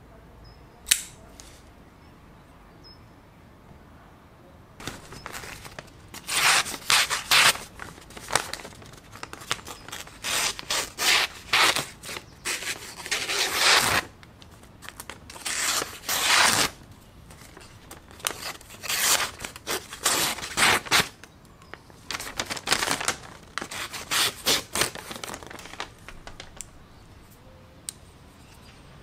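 The freshly sharpened blade of a Sanrenmu 710 folding knife slicing through a sheet of printed paper, in a long run of rustling, tearing cuts from about five seconds in until near the end. There is a single sharp click about a second in as the knife is opened.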